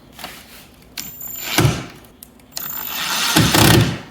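Power drill driving the screws of a door latch face plate into the wooden door edge, in two short runs: one about a second in and a longer one near the end.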